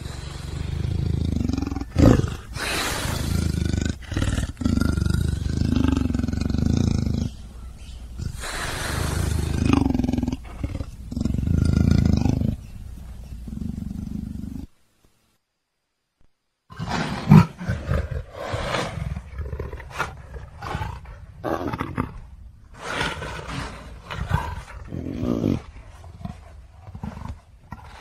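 Big cat roaring and growling in long, loud calls with short breaks between them. It falls silent for about two seconds near the middle, then comes back as a choppier run of short growls and grunts.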